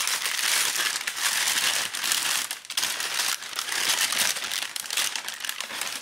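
Shoe wrapping and tissue paper crinkling as the wrapped sneakers are handled and lifted in their box, almost without pause.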